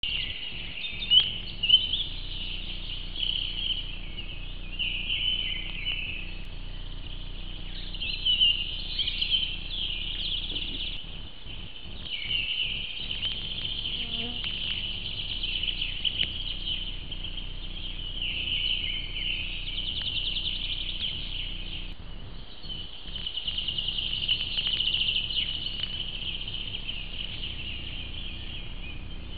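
Woodland birds singing: an unbroken mix of warbling songs and fast trills, heard through a trail camera's microphone.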